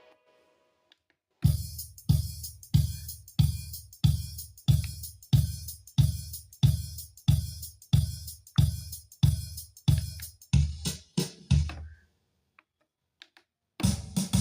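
Yamaha PSR-1000 arranger keyboard playing a drum beat through its speakers: evenly spaced strokes of bass drum together with cymbal, about one and a half a second, quickening briefly before stopping. One more hit comes near the end. The keyboard's sound output is being tested during repair of a low-sound fault.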